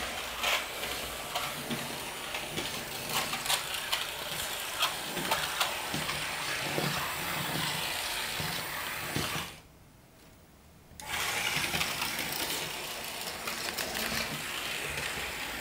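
Small electric motor and gears of a Märklin H0 model locomotive running along the track: a steady whir with scattered clicks. The sound drops out briefly about ten seconds in.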